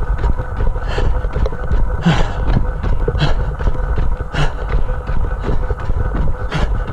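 A trail runner breathing hard, about one heavy breath a second, with quicker footfalls on a dirt path between the breaths and a steady rumble of wind on the microphone.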